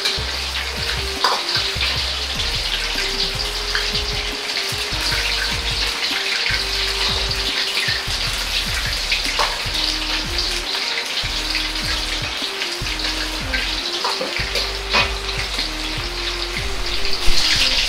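Pork pieces deep-frying in hot oil in a wok, a steady sizzle for the second frying at raised oil temperature. A metal ladle clinks against the wok a few times as it stirs.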